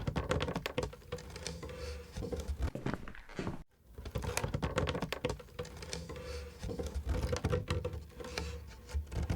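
Rapid, irregular light clicking and tapping, like typing, over a faint steady hum. The sound breaks off for an instant about three and a half seconds in.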